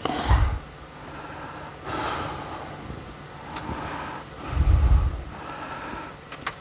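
A person breathing heavily close to the microphone, about three breaths. The first, at the start, and the loudest, about four and a half seconds in, each come with a low thump.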